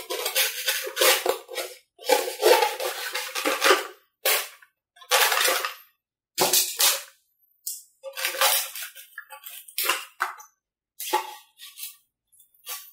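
Handling noise from hands working on a foam-board RC model airplane: a string of short scraping and rustling bursts, loudest in the first few seconds.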